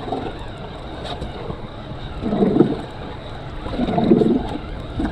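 Wind buffeting the microphone and sea water washing against a small boat's hull, with two louder rushes about two and a half and four seconds in.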